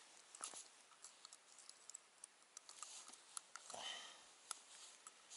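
Faint, scattered small clicks and rustles as ice-fishing tackle and a freshly caught perch are handled at the ice hole.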